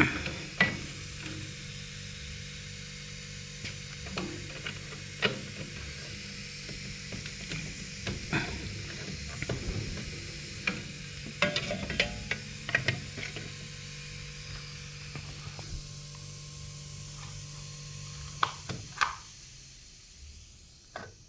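Copper tubing being handled and fitted as a refrigerator's suction pipe: scattered small metallic clicks and knocks over a steady low hum and hiss, which stops about eighteen seconds in.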